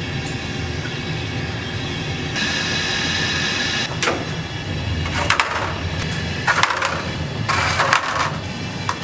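Wire-mesh noodle strainer baskets clattering and scraping against stainless steel as they are set into the openings of a noodle boiler, in several short bursts over the second half. A steady low kitchen rumble lies under it, and there is a hiss of about a second and a half near the start.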